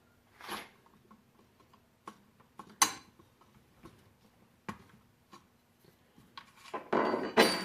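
Scattered metal clicks and taps of hand tools working on an AR-15 lower receiver, as work starts on loosening the castle nut at the buffer tube. There is a sharp click about three seconds in, and a louder run of clinks and scraping near the end.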